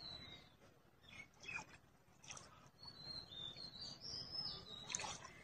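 Faint bird calls: thin, high whistled chirps at the start and again in a longer run over the last couple of seconds, with a few soft clicks between them.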